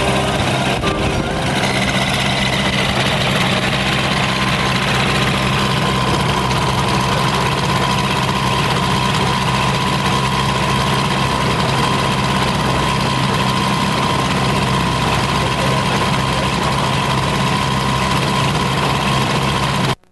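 Light aircraft engine of the JA5 Walrus experimental canard running steadily at a constant speed, with a steady whine over the low engine note. It cuts off abruptly near the end.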